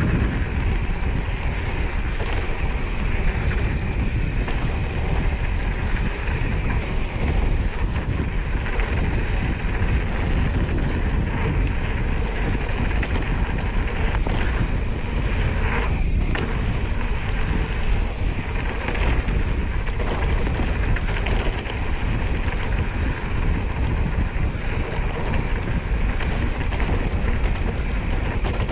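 Steady wind rushing over the microphone, with the rumble of mountain bike tyres rolling over a dirt singletrack at speed.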